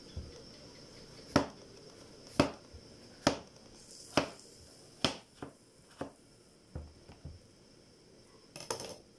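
Kitchen knife slicing through a peeled bantiyong fruit and knocking on a wooden chopping board, about one sharp knock a second, with a quick clatter of knocks near the end.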